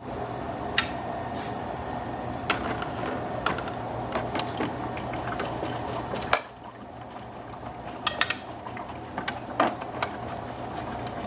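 Water running into the plastic water tank of a Black+Decker air humidifier, filling it, with scattered clicks and knocks of the plastic tank being handled. A sharp knock about six seconds in, after which the sound is quieter.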